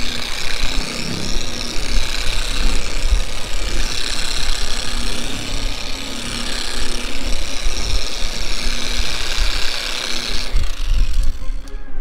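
Dual-action polisher running with an orange foam pad on a truck door's paint, a steady motor whir that drops away about ten and a half seconds in. An uneven low rumble of wind on the microphone runs underneath.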